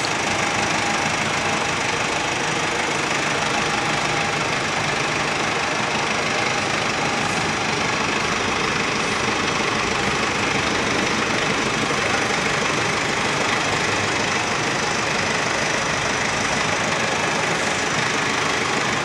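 Mercedes-Benz Sprinter van's engine idling steadily, heard up close.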